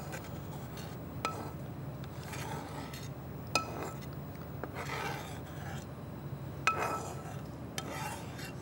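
A metal spoon scraping and rubbing softly against a dish while spreading chocolate glaze, with three light clinks spaced a couple of seconds apart.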